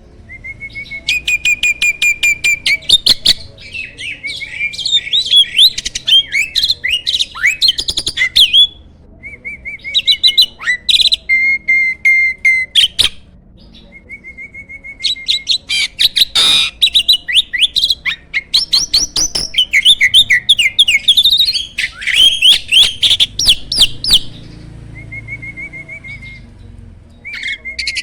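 A jalak starling singing loudly: a long, varied run of rapid repeated clicking notes, whistled glides and harsh chattering phrases, in bursts broken by short pauses.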